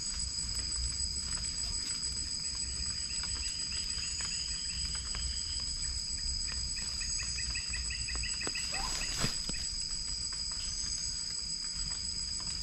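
Night insect chorus of crickets: a steady high-pitched shrilling, with two runs of rapid chirps at about five a second. A brief sharp sound comes a little after the middle.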